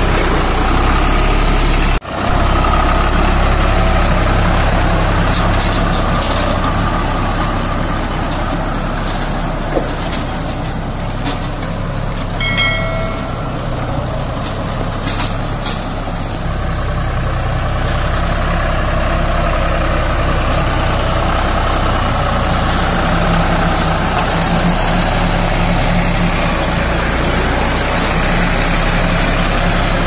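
Deutz-Fahr 4050E tractor engine running steadily as it pulls and drives a round baler through straw. A short beep-like tone is heard about halfway through.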